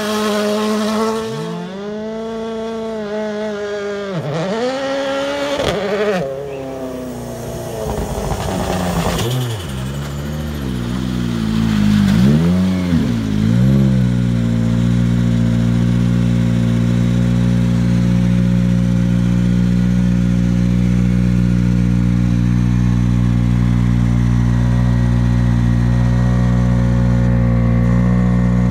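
2017 Ford Fiesta WRC rally car's 1.6-litre turbocharged four-cylinder engine pulling hard through the gears as the car drives away on gravel, its note rising and dropping with each shift and growing fainter. Then, close up, it revs a few times before settling into a steady idle about halfway through.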